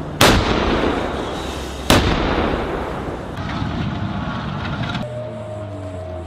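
Self-propelled howitzers firing: two loud shots about a second and a half apart, each followed by a long rolling rumble. Near the end a steady low drone with a held higher tone takes over.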